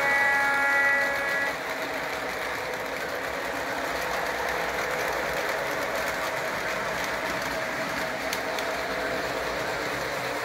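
Model trains running on three-rail track: a steady rolling rumble of wheels and motors. A short, louder tone from a locomotive's sound system sounds in the first second and a half.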